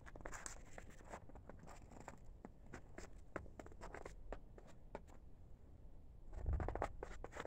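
Faint crunching footsteps on thin snow with many scattered small clicks, then a short low rumble about six seconds in.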